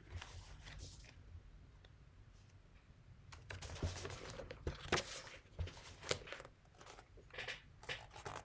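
Pages of a book being leafed through by hand: soft paper rustles and light taps, starting a few seconds in and continuing until the open book is held up.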